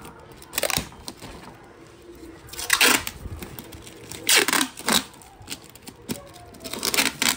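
Brown packing tape being ripped off its roll in several short pulls, the longest about three seconds in. A plastic flex sheet crinkles between pulls as it is pressed down.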